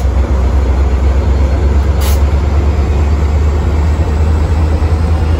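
Metra diesel passenger locomotives moving slowly past, their engines giving a loud, steady low drone. A brief hiss of air comes about two seconds in.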